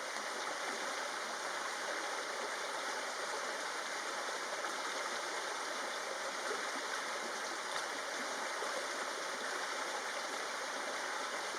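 Steady, even rushing noise of running water, with no single sound standing out.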